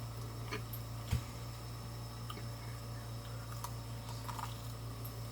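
Close-miked mouth sounds of a person chewing food: soft wet squishes and small clicks. A steady low hum runs underneath, and a single thump comes about a second in.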